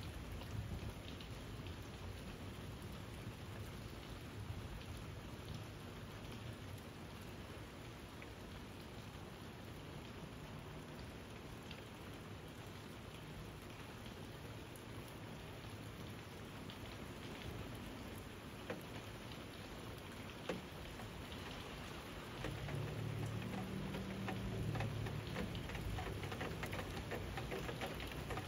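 Steady rain falling, with scattered drops tapping. A low rumble comes in near the end, and the sound grows louder there.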